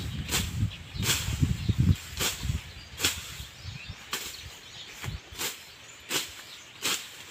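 Grass and dry banana leaves rustling as they are handled, then a steady series of sharp swishes about every three-quarters of a second from a bolo knife slashing through weeds.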